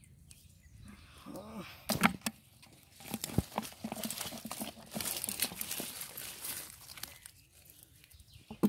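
Rustling and splashing with many small clicks and knocks, as wet water hyacinth and fish are handled by hand. A brief gliding vocal sound comes a little over a second in.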